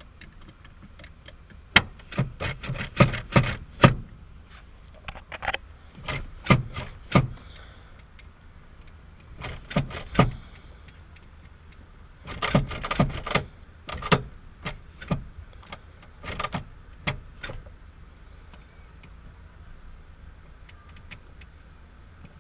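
Clusters of sharp clicks and rattles from a car's handbrake lever and its aftermarket drift button being worked by hand, several groups of quick clicks with short pauses between them.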